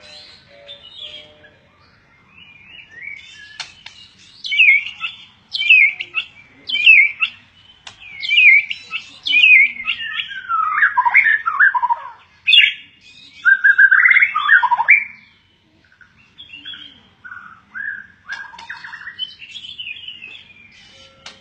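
A songbird singing: a run of quick, sharp notes that each slide downward, then louder, lower phrases that fall in pitch, then softer twittering toward the end.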